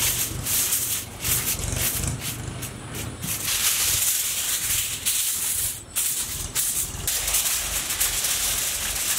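Aluminium foil crinkling and rustling in repeated bursts as it is spread, crumpled and pressed by hand into a large iron kadai.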